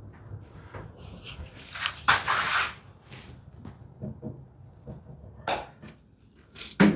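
Wood pieces and tools being handled in a workshop: several short scraping and rubbing sounds, the loudest about two seconds in, with brief knocks between.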